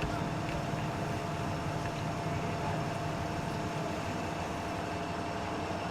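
Steady mechanical hum of a running vehicle engine, with a constant hiss over it.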